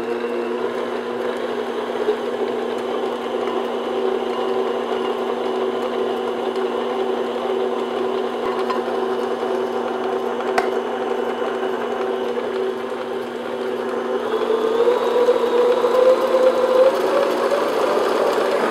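Electric stand mixer with a paddle attachment running, creaming butter as sugar is added: a steady motor hum that rises slightly in pitch and gets louder about three-quarters of the way through.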